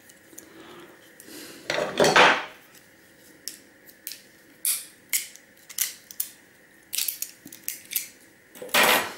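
Hard drive magnet plates being pried apart and handled, metal on metal: a rasping scrape about two seconds in, then a run of sharp metallic clicks and clacks, the loudest near the end.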